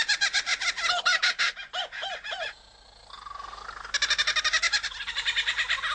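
Superb lyrebird singing its mimicked song: fast, evenly repeated notes like a kookaburra's laugh. About two and a half seconds in the notes stop for a moment, leaving a thin rising note, and then the rapid notes start again.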